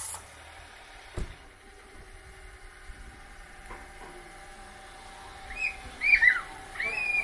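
A dog whining: a few short, high-pitched whines that rise and fall, in the last two seconds. A single light knock comes about a second in.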